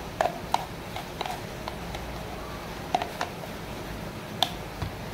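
A metal spoon clinking and tapping against a plastic chopper bowl and a glass bowl as sticky meatball dough is scraped out, about ten light taps at uneven intervals over a steady low hum.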